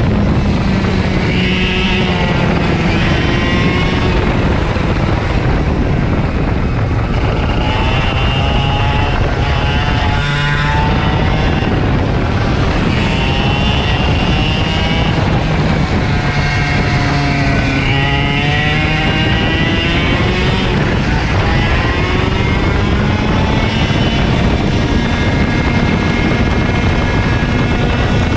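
KA100 racing kart's 100cc two-stroke engine at race pace. Its pitch climbs and drops over and over as it accelerates and lifts off around the track.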